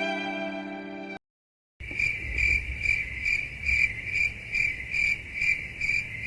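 The end of a sad violin tune, cut off a second in, then a moment of dead silence. After that, crickets chirp in a steady even rhythm of about two to three chirps a second.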